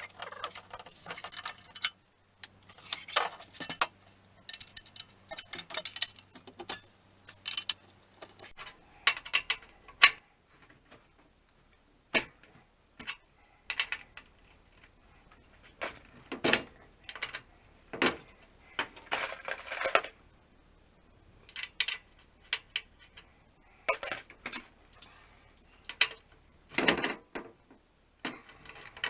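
Irregular metallic clinks, taps and rattles of tools and bicycle parts as a bike is taken apart.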